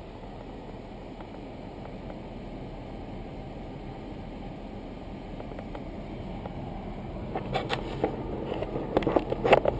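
Jeep engine running at low speed with a steady low rumble as the vehicle rolls slowly, picked up by a hood-mounted camera. Near the end come a few sharp knocks or clicks, louder than the engine.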